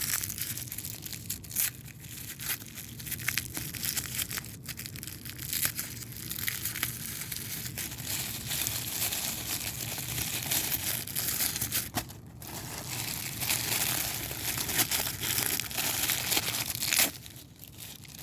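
Toy packaging crinkling, crumpling and tearing as it is handled and opened by hand, a steady crackle of many small clicks with a brief pause part way through.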